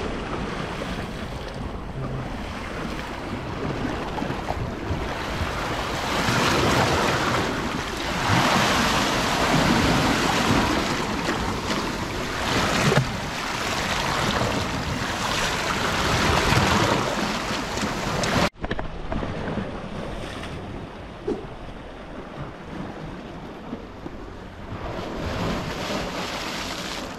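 Sea surf surging and washing over shoreline rocks, with wind buffeting the microphone. The rush swells louder several times, then drops to a quieter wash of surf about two-thirds through.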